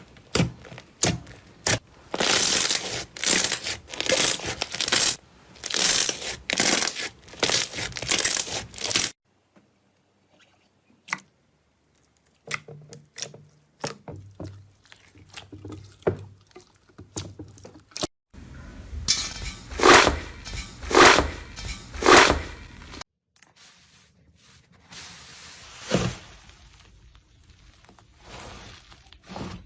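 Slime being squeezed, pressed and poked by hand, giving crunchy crackling and wet squishing across a run of short clips. The opening third is dense crackling, the middle holds only sparse clicks, and three loud squishes come about two-thirds of the way in.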